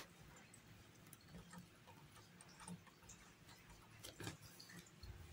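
Near silence, with a few faint soft ticks and rustles of handling as a tapestry needle draws the t-shirt yarn end through the crochet stitches.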